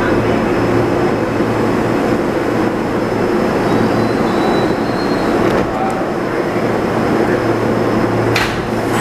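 R160 subway car running along the track, heard from on board: a steady rumble of wheels and motors with a low hum, and a couple of sharp clicks a few seconds apart in the second half.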